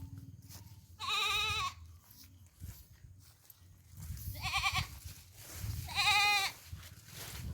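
Goat bleating three times, each call a wavering, quavering cry, over a steady low rumble.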